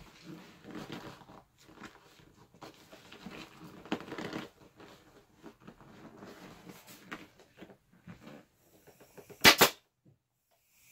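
Rustling and knocking as an ATV seat pan and its vinyl cover are handled and turned on a workbench, then one loud, sharp bang about nine and a half seconds in.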